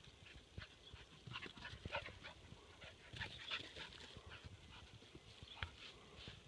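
Staffordshire bull terrier's short, high-pitched whimpers and yips as it plays with a sheep, coming in a few quick bunches.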